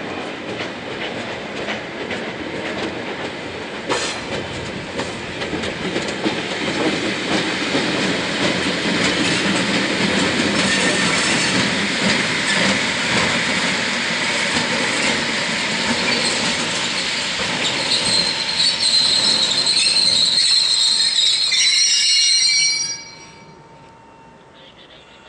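A pair of ED45 electric locomotives running coupled together at low speed, their wheels knocking over rail joints and points. A high squeal builds in the last few seconds, and the sound then cuts off suddenly.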